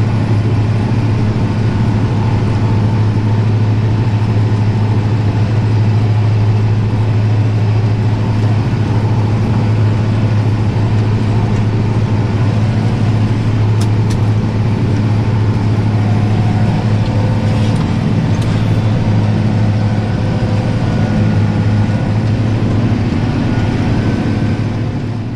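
Tractor engine running steadily at a constant speed, a strong, unchanging low hum that fades out at the very end.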